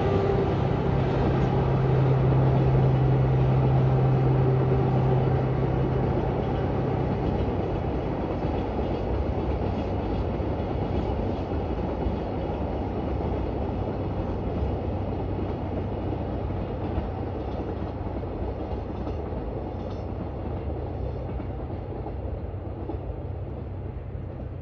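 JR Freight DF200 diesel-electric locomotive passing at the head of a container freight train. Its engine drone is strong for the first several seconds, then gives way to the rumble of the container wagons rolling by, which grows steadily quieter as the train draws away.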